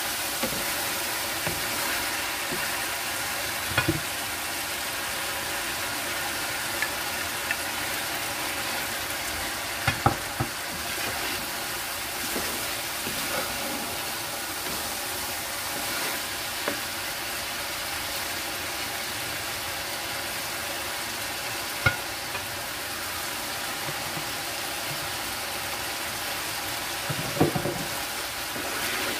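Chicken and vegetables sizzling in sauce in a metal pan while a wooden spoon stirs them, a steady frying hiss. A few sharp knocks of the spoon against the pan are scattered through it.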